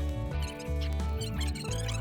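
Background music with held bass notes and a wavering high melody.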